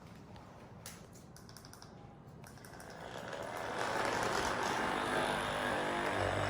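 A few faint clicks, then about three seconds in a small motor starts and runs steadily to the end.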